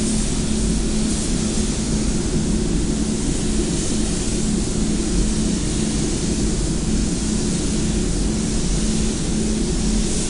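Air-fed gravity-cup spray gun hissing steadily as paint is sprayed onto a car's front wing, over the steady low hum and rumble of the spray booth's ventilation.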